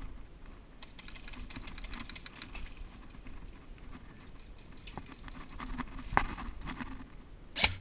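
Faint, irregular clicking and rustling of a player's gear and movement, then sharp cracks near the end from an airsoft replica firing.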